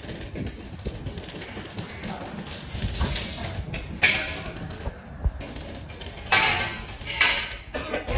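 Galvanized sheet metal clanking and scraping as it is handled and worked, in irregular knocks with several louder bursts.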